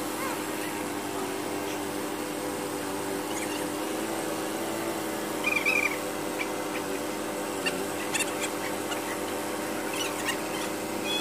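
Forklift running with a steady engine and hydraulic hum. A few short high chirps or squeaks come over it, the loudest about halfway through.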